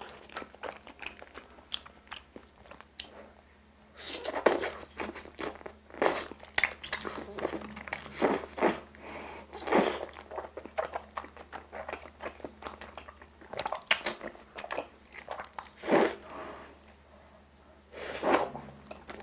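A person slurping and chewing thick, jelly-soft bunmoja glass noodles in a spicy octopus sauce, in irregular bursts with quiet gaps in the first few seconds and shortly before the end.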